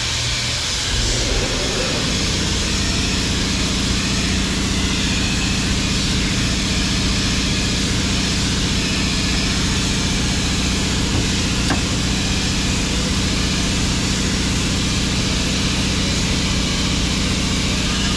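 A machine running with a steady low hum that starts about a second in, over a steady hiss, with a single click about two-thirds of the way through.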